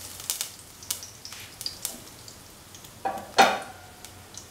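Cumin seeds sizzling and popping in hot oil in a non-stick pan, with scattered sharp pops and one louder crackle about three seconds in.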